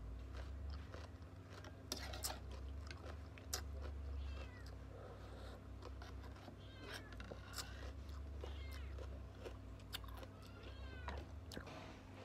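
A cat meowing a few times, with short clicks of crunchy cucumber being chewed between the calls.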